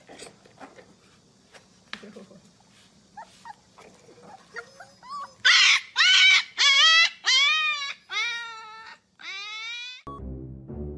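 Husky puppies in a wire crate yowling: after a few faint clicks, a quick run of about six high-pitched howls starts about five seconds in, each rising then falling in pitch, the last a longer falling howl.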